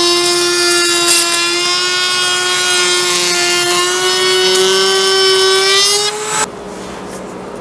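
Table-mounted router with a roundover bit cutting a quarter-round profile on the edge of an oak board: a loud, steady high motor whine whose pitch creeps up near the end. It cuts off suddenly about six seconds in, leaving a quieter steady hum.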